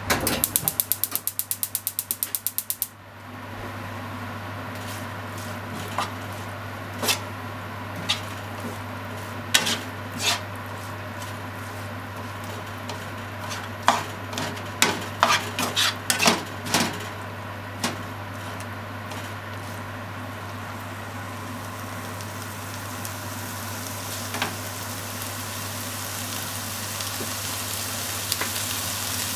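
Chicken and vegetables sizzling in a nonstick frying pan while a plastic turner stirs them, with scattered sharp taps and scrapes of the turner on the pan, most of them through the middle; the sizzle grows louder near the end. It opens with a rapid run of clicks lasting about three seconds, and a steady low hum runs underneath.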